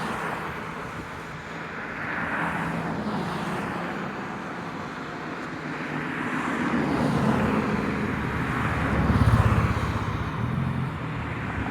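Steady outdoor road-traffic noise, with a vehicle's low engine hum swelling as it passes close, loudest about nine seconds in.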